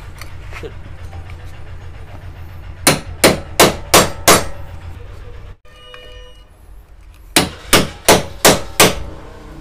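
A hammer striking a steel punch to set the rivets that hold the bush retainer plate in an air cooler motor's end cover. It comes in two runs of five sharp metallic blows, about three a second, and a low steady hum underneath stops about halfway through.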